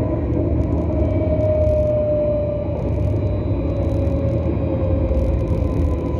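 Tram car running, heard from inside: a steady low rumble of wheels on rails with the electric drive's whine over it. The whine rises slightly, then drops in pitch near the end as the tram slows.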